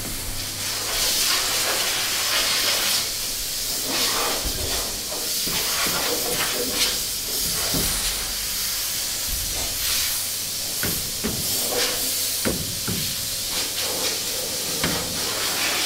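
Steady hissing noise throughout. In the second half come a few sharp clicks and knocks from a sheet-metal door panel on a Steyr 1500A body being handled.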